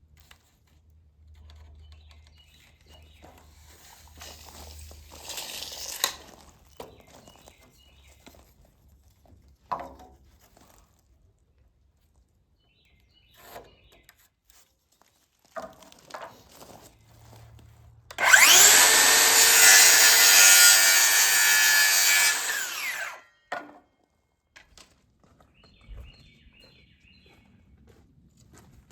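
A power saw cutting through a wooden board for about five seconds, a little past the middle. Light scattered knocks come before it.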